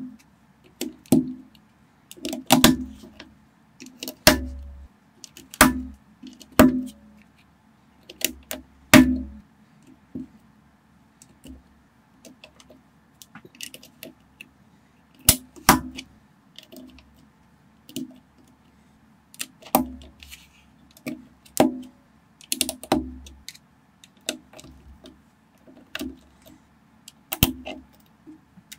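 Plastic Lego bricks clicking as they are pressed and snapped together by hand: irregular sharp clicks, often two or three in quick succession, many with a dull thud as the model is pushed down.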